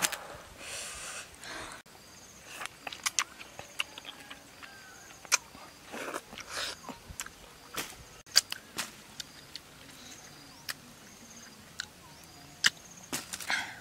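Wet eating sounds of a ripe mango: lip smacks, sucks and slurps as the soft flesh is bitten and pulled off the peel, coming as irregular sharp clicks.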